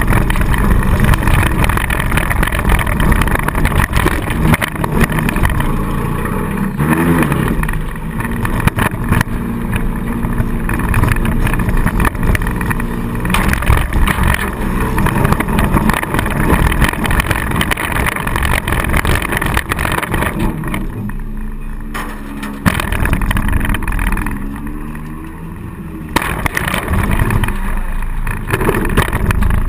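Four-cylinder demolition derby car's engine revving and running hard, heard from inside the car, its pitch rising and falling, with a few sudden bangs along the way.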